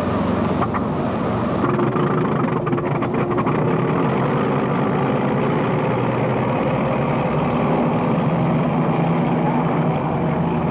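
Motorboat engine running steadily at speed, with old, hissy recording noise and a little crackle near the start.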